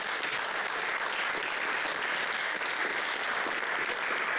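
Small audience applauding, an even, steady clapping.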